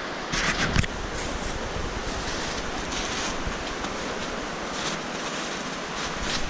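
Boots crunching step by step through deep snow over a steady rushing hiss.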